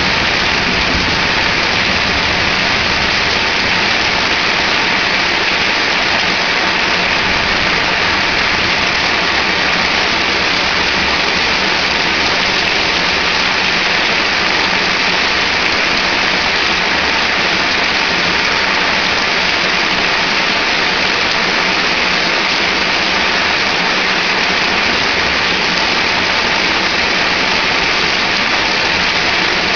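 Heavy thunderstorm rain pouring down, a loud, even hiss that never lets up.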